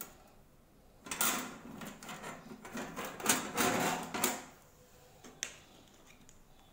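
Thin copper plates clinking and scraping against each other and their metal binding rings as they are turned over. A run of clattering about three seconds long, then a single sharp click.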